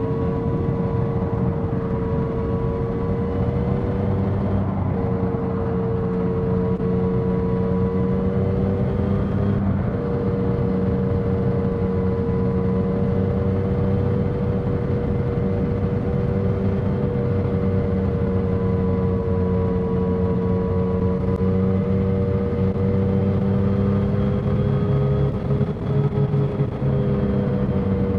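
2021 Yamaha XSR900's inline three-cylinder engine running at a steady highway cruise, heard from the rider's seat over rushing wind. The engine note holds steady, with a couple of brief breaks.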